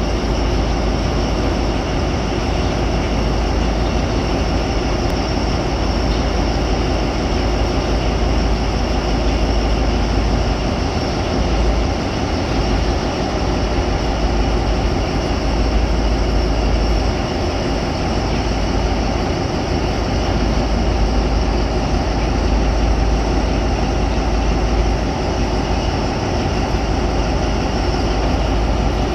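Steady heavy-machinery din from a BEML 205-tonne mining dump truck's diesel engine running while a rope shovel loads coal into its body, with a deep, continuous low rumble.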